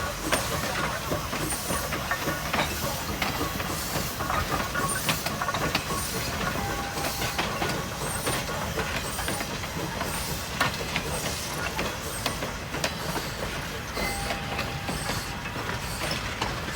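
Steam train running: the 1928 steam tank locomotive and its cars give a steady hiss and rumble, with scattered clanks and wheel clicks.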